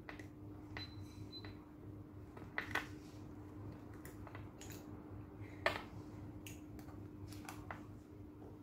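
Sparse small clicks and taps from hand-finishing work on a faux-leather bag, with two sharper clicks about two and a half and five and a half seconds in, over a steady low hum.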